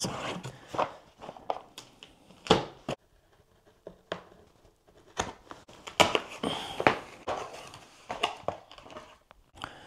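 Cardboard packaging being handled: a small accessory box lifted out, its packing tape cut and its flaps opened, in a string of rustles, scrapes and short knocks, the sharpest about two and a half seconds in.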